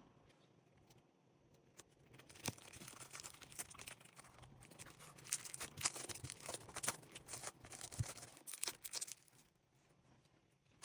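Popcorn slime being squished and worked by hand, giving a dense run of crackling, popping clicks that starts about two seconds in and dies away near the end.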